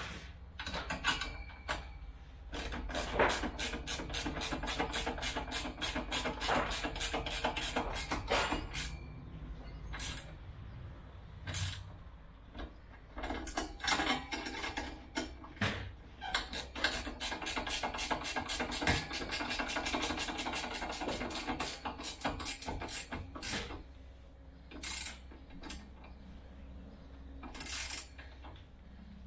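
Ratchet spanner tightening the nuts and bolts of a side bar bracket, clicking rapidly in two long runs with single clicks and knocks between them.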